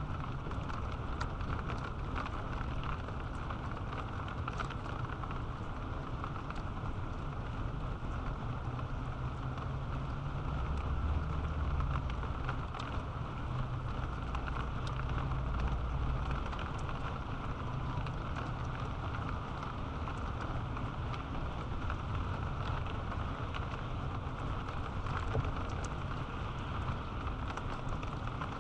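Steady rain falling, with many small drops ticking, and a low rumble that swells for several seconds in the middle.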